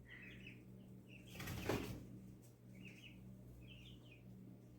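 Faint small-bird chirps, short calls repeating every second or so, with a brief rush of noise about a second and a half in.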